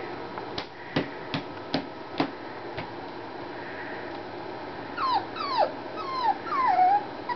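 Havanese puppy whimpering in about five short yips, each falling in pitch, starting about five seconds in; before that, a few sharp clicks.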